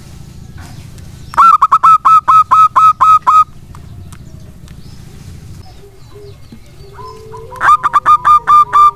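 Zebra dove (perkutut) singing: two runs of rapid, loud staccato notes, about five a second, the first lasting about two seconds and the second starting near the end.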